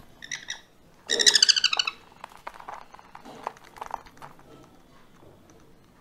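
Sun conure chicks calling while being syringe-fed, the begging calls of hand-fed chicks: a short squawk, then about a second in a louder call with rapid pulsing that lasts most of a second.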